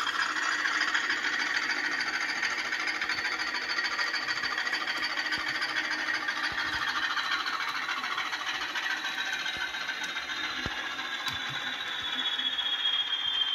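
Sampled class 20 diesel locomotive engine sound from a model railway DCC sound decoder, played through a small loudspeaker, running steadily. A high whistle slides slowly down in pitch near the end.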